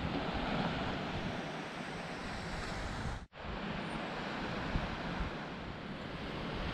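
Wind buffeting the microphone over the steady wash of low surf on a rocky sandy shore. The sound drops out for an instant a little past the middle, then returns unchanged.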